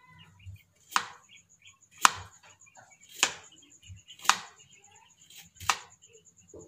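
Kitchen knife slicing through carrots onto a plastic cutting board: sharp chops about once a second, five or six strokes.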